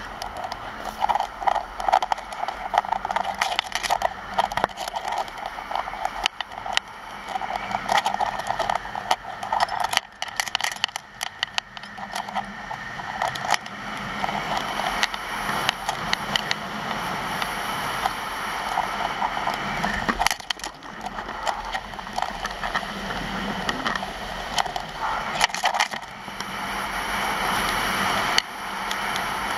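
Skis scraping and crackling over packed snow on a downhill run, with wind rumbling on the microphone.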